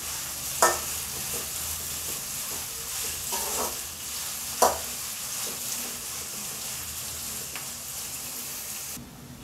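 Sliced onions sizzling steadily in hot oil in an aluminium kadai as they are stirred with a metal ladle, being fried down toward golden brown. Two sharp clinks of the ladle against the pan stand out, about half a second in and near five seconds, and the sizzle cuts off suddenly near the end.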